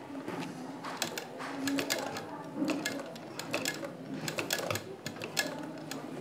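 Black straight-stitch sewing machine worked slowly by hand at its handwheel, its mechanism and needle giving irregular runs of clicks and ticks as it stitches through lehenga fabric.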